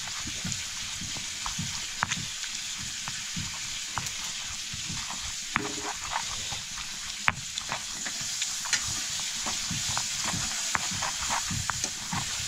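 Stone pestle rubbed and rocked over a flat grinding stone (silauto and lohoro), crushing chilies and small local tomatoes into achar: wet scraping and squishing with many small clicks and a few low knocks a second, over a steady hiss.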